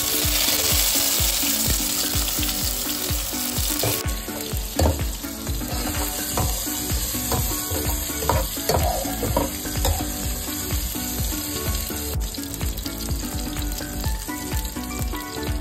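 Sliced shallots, garlic and fresh tomato sizzling in hot oil in a non-stick wok, while a spatula stirs and scrapes the pan. The sizzle flares loudly as the tomatoes go in and settles after about four seconds into steady frying.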